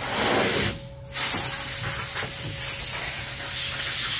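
Compressed-air blowgun blasting loose dirt out of a windshield opening: a hissing rush of air, a short gap just before one second in, then a long steady blast.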